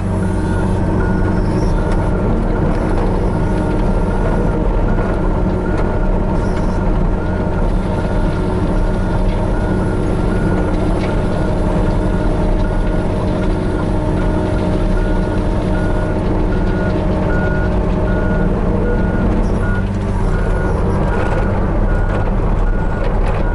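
Hitachi 35U mini excavator's diesel engine running steadily under work, with its travel alarm beeping at a steady pace of a little over one beep a second as the machine moves.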